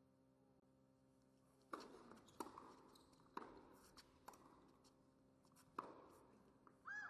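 Tennis ball struck back and forth in a serve and rally on an indoor hard court: five sharp pops of racket on ball and ball on court, starting a little under two seconds in and coming about a second apart, with a brief high squeal near the end.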